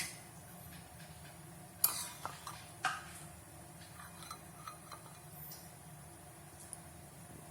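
Kitchenware clinking and knocking while squid is handled in seasoned flour: two sharper knocks about 2 and 3 seconds in, with scattered lighter ticks, over a low steady hum.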